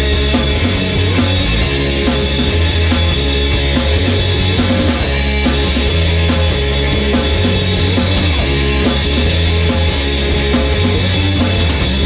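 Rock band playing a loud instrumental passage: guitar over held bass notes that change every second or so, with drums.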